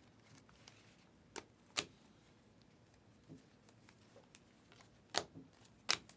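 Trading cards being handled on a table: a few sharp clicks and snaps, four of them louder, in two pairs.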